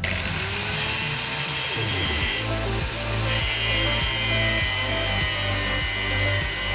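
Angle grinder in a homemade tube-cutting jig spinning up with a quickly rising whine, then its cut-off disc biting into a thick steel tube and grinding steadily through it, throwing sparks. Background music plays underneath.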